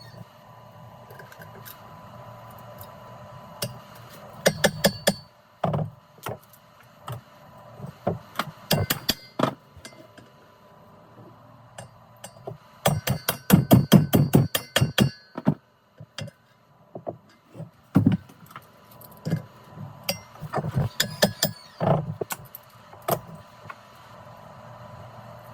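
Metal hand tools clinking and knocking against car parts in irregular strikes, with a fast run of clicks about halfway through.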